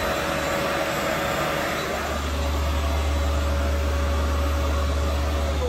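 A small electric motor running with a steady whine over a rush of air, switched off near the end and winding down in pitch.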